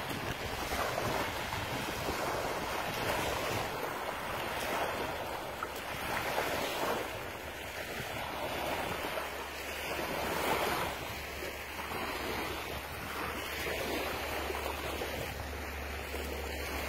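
Small waves lapping onto a sand beach, the wash swelling and ebbing every second or two, with wind on the microphone adding a low rumble in the second half.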